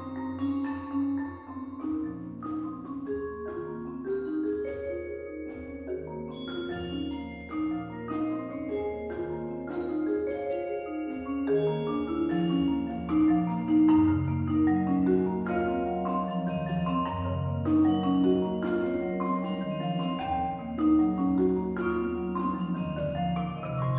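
Mallet percussion ensemble playing: a solo marimba with other mallet instruments, many struck notes, some left ringing, over a low marimba bass line. It grows louder from about halfway.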